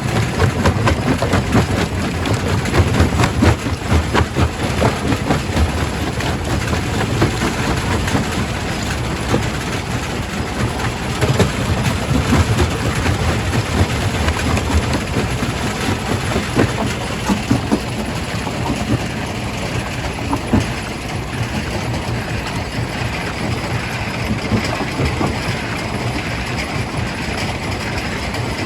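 Quarry primary rock crusher running, with a heavy low rumble and a dense clatter of rocks knocking and cracking. The knocks are thickest in the first half and thin out later, leaving a steadier grinding noise.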